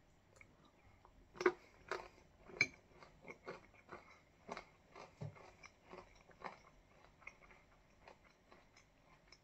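A mouthful of crunchy oat-cluster granola with milk and a dried banana slice being chewed: irregular crunches, loudest in the first few seconds, then softer chews.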